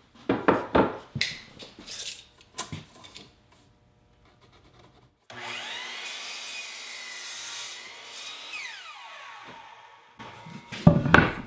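Wooden 2x4s knocked and handled, then a Bosch miter saw's motor starts with a rising whine, the blade cuts through a Douglas fir 2x4 for a few seconds, and the motor winds down with a falling whine. A few more wooden knocks come near the end.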